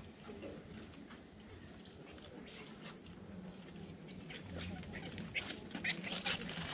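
A troop of Central American squirrel monkeys calling: many short, high-pitched chirps, one after another, with a few light clicks among them.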